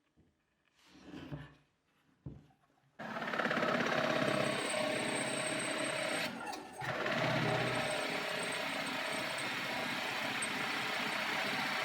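A motor-driven machine starts abruptly about three seconds in and runs steadily, dipping briefly once partway through. A faint knock comes just before it.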